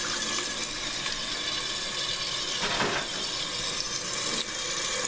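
Toilet tank refilling after a flush: the fill valve hissing steadily as water runs into the tank.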